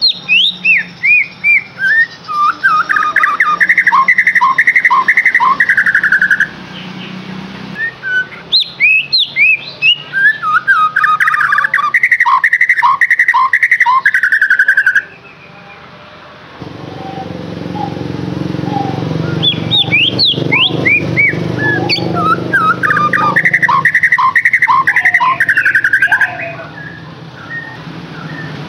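A songbird singing the same phrase three times: a run of quick high chirps followed by a fast trill. A low steady hum sits under the song in the second half.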